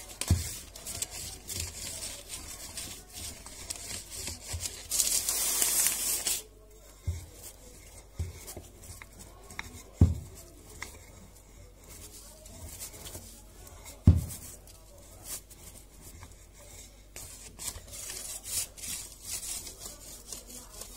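Wooden rolling pin rolling out shortcrust pastry dough on baking parchment: soft rubbing and paper rustling, with a louder rustle lasting about a second and a half some five seconds in. A few dull knocks, the loudest about ten and fourteen seconds in.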